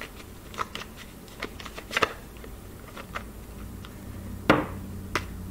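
A tarot deck being shuffled by hand, with irregular soft slaps and flicks of the cards. The loudest slap comes about four and a half seconds in.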